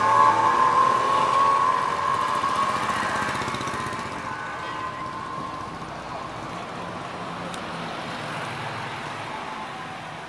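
A vintage light truck's engine pulling away and fading, with a whine that falls slightly in pitch. A city bus then passes close by with a low engine hum.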